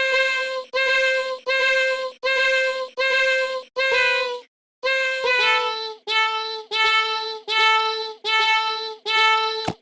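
A high-pitched, child-like or synthetic voice singing the same short note about a dozen times in a steady rhythm, a little more than one a second. There is a brief break a little before halfway, and after it the pitch steps down slightly.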